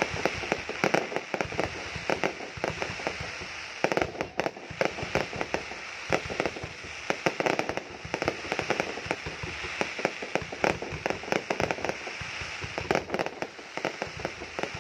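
Fireworks crackling and popping: a dense, irregular stream of sharp cracks over a steady hiss.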